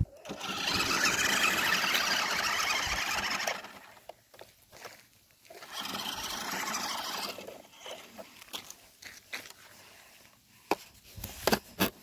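Toy RC monster truck's small electric motor whining as it drives off through a muddy puddle, in two bursts: one about three seconds long at the start and a shorter one about halfway through. A few sharp knocks near the end.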